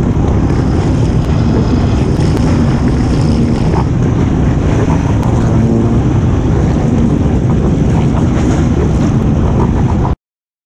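Several dirt-bike engines running at a race start line, mixed with wind noise on the microphone, steady and loud. The sound cuts off abruptly about ten seconds in as the camera shuts off.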